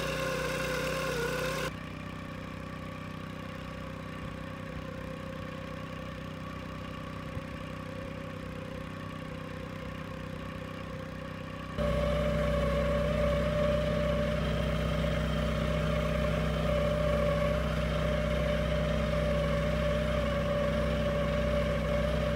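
A small boat's outboard motor running steadily at an even pitch, pushing the boat along. It drops in level about two seconds in and comes back louder near the twelve-second mark, where the shot changes.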